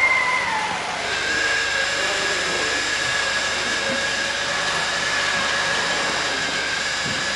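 Electric motor whine of an OO-gauge model railway locomotive, dropping in pitch as it passes close by, then settling into a steady high whine under a constant hiss.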